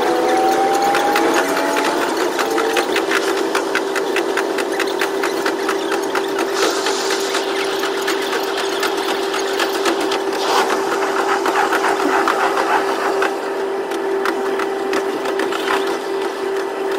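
KiHa 122 diesel railcar running, heard from the cab and sped up to double speed. The engine and transmission whine climbs in pitch at the start, then settles to one steady tone. Rapid ticking and rattling runs throughout, with a few short rushes of noise.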